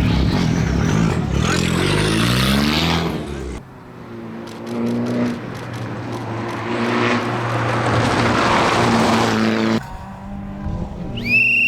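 Rally car's turbocharged 1.4-litre four-cylinder (Fiat Egea 1.4 T-Jet) accelerating hard, its pitch climbing for the first few seconds. After a cut it is heard again further off, running steadily as it comes closer and the rush of the car grows louder. A steady high whistle starts near the end.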